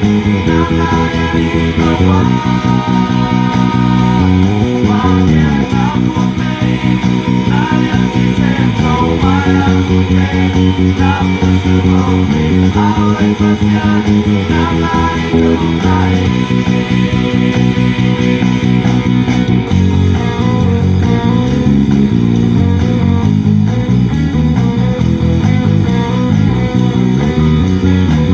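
Electric bass guitar plucking a bass line along with a full band backing track of a song, following the chorus chords B, F#, G#m and E.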